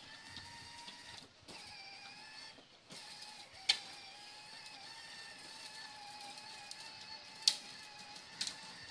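Battery-powered ride-on toy fire truck's electric motor and gearbox whining steadily as it drives. It cuts out briefly twice when the pedal is let off, and two sharp clicks come a few seconds apart.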